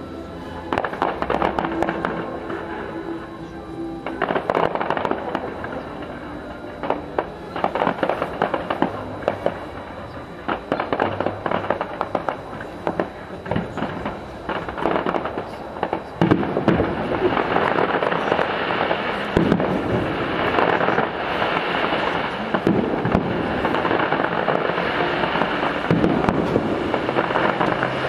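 Display fireworks going off at a distance: a run of sharp bangs and crackles, thickening from about halfway into a denser, almost continuous crackle.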